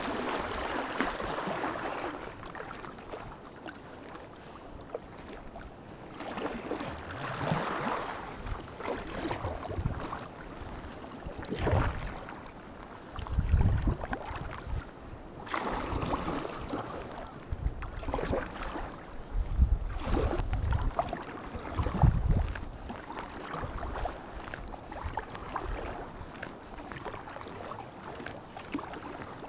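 Double-bladed kayak paddle dipping and pulling through calm sea water, swishing and splashing with each stroke, with water lapping against the folding kayak's hull. Gusts of wind rumble on the microphone now and then.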